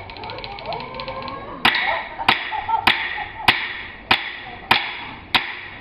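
Sharp, ringing knocks at a steady beat, a little under two a second, starting about a second and a half in.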